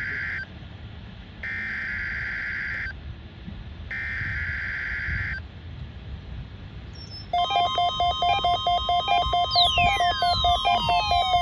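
NOAA Weather Radio SAME header for a Required Weekly Test: the end of one digital data burst, then two more, each about a second and a half long. About seven seconds in, a louder electronic sound begins, a steady tone with a pulsing, synthesizer-like pattern and falling sweeps.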